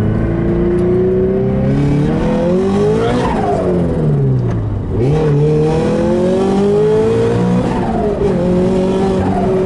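Turbocharged Scion FR-S's flat-four engine pulling under acceleration, revs climbing, falling away at gear changes, and climbing again, twice.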